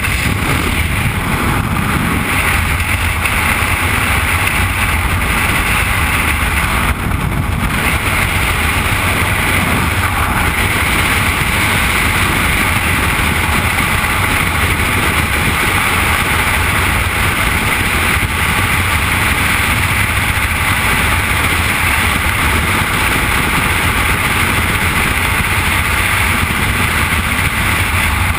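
Freefall wind rushing over a helmet camera's microphone during a skydive: a loud, steady roar of air.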